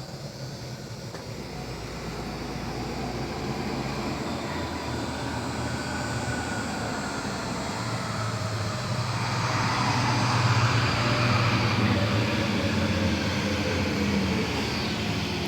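A passing engine's low, steady hum grows gradually louder as it approaches, loudest about two-thirds of the way through.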